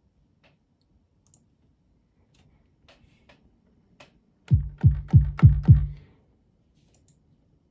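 A few faint clicks, then five quick 808 kick drum hits about four and a half seconds in, each a deep thump that drops in pitch. The hits come from an FL Studio 808 kick sample, triggered from an Akai MPK Mini MkII controller and heard through the computer's speakers.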